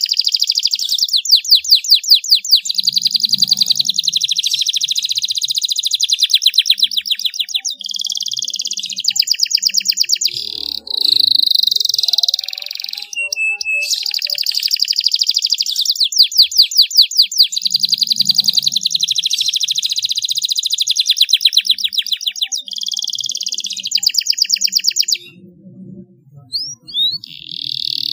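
Domestic canary singing a long, near-continuous song of fast trills and rolling runs of repeated notes, high-pitched, breaking off briefly near the end for a few short chirps before going on.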